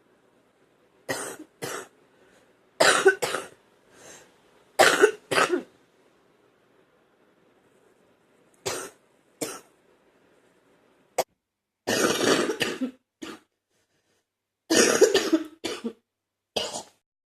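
A person coughing wet, phlegmy coughs in a series of short fits. The fits are single coughs or quick runs of two or three, with pauses of a second or more between them, and a sharp click about eleven seconds in.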